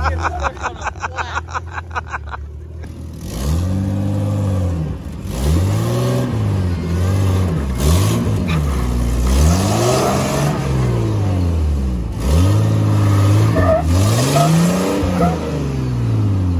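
Jeep Cherokee XJ engine under load on a rock ledge climb. It runs steadily for about three seconds, then is revved up and down about six times, rising and falling in pitch with each push.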